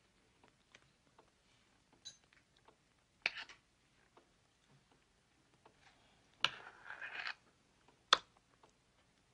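Cutlery clinking and scraping on dinner plates at a quiet table. A few sparse sharp clicks fall about three and eight seconds in, with a louder clink and a short scrape at six and a half seconds.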